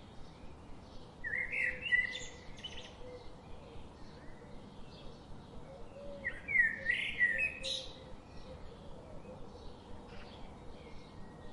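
Birdsong: two louder twittering song phrases about five seconds apart, over faint chirping that keeps up throughout.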